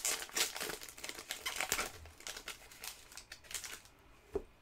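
Foil trading-card pack wrapper crinkling as it is torn open and handled. The crackle is dense at first and thins out after about two seconds, with a single tap near the end.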